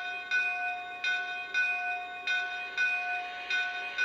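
Recorded steam-locomotive bell played by a Lionel Union Pacific sound passenger car, ringing steadily at a bit under two strikes a second, each strike ringing on into the next. A very basic bell sound.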